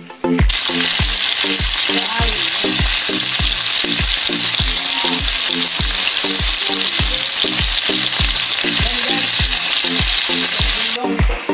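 Bilong-bilong (moonfish) frying in hot oil in a pan: a loud, steady sizzle that starts about half a second in as the fish goes in and cuts off sharply near the end. Background music with a steady beat plays underneath.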